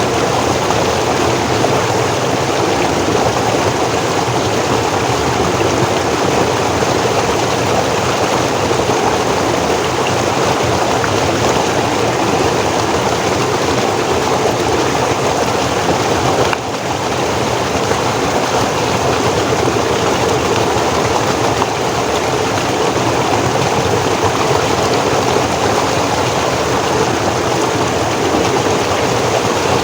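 Forest stream flowing: a steady, even rush of water, with a momentary dip in level about halfway through.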